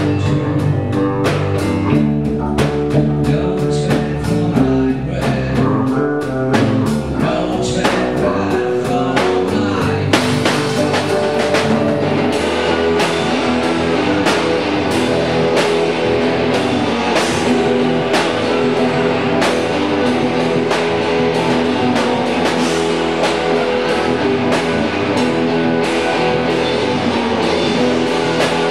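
Live amateur band jamming a blues-rock groove: electric bass, electric guitar and drum kit. The playing grows fuller and brighter about ten seconds in.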